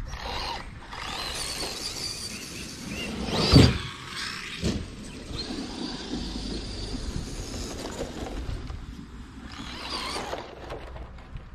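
Electric RC cars' motors whining, rising and falling in pitch as they speed up and slow down, with a loud knock about three and a half seconds in and a smaller one about a second later.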